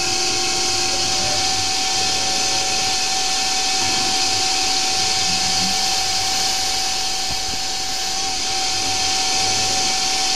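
Hercus PC200 CNC lathe running with its spindle turning a brass workpiece while a twist drill bores into the end of it. The sound is a steady whine under a strong hiss, with no break.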